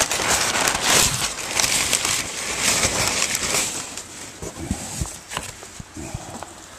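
Brown packing paper rustling and crinkling as it is pulled out of a cardboard parts box, loudest for the first few seconds, then fading to a few faint handling clicks.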